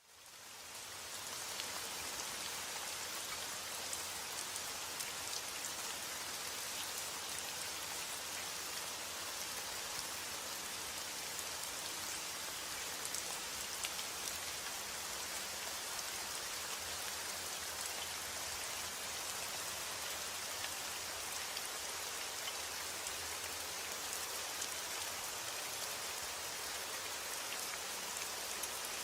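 Steady rain falling, an even hiss with fine drop ticks, fading in over the first second or so.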